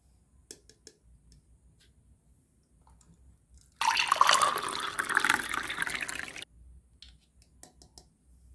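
Liquid poured from a small plastic toy kettle into a plastic toy saucepan, a splashing stream lasting about two and a half seconds from about four seconds in and stopping abruptly. Light plastic clicks and taps as the kettle is picked up and handled come before and after it.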